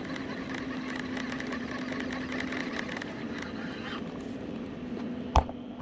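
Steady low hum of a distant motor over outdoor background noise, with faint ticking and one sharp click near the end.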